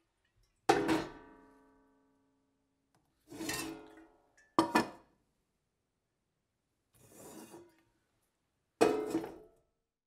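Empty metal kettle set down hard on a surface three times, each knock followed by a short metallic ring; the first rings on for about a second. Softer scraping sounds come in between the knocks.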